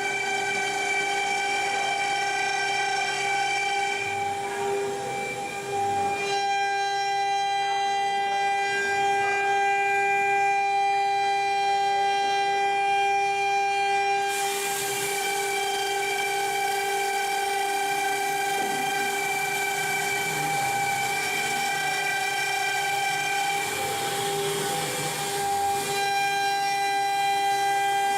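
CNC plasma cutter cutting steel: a steady high whine with a ladder of overtones, and a hiss that grows stronger about halfway through.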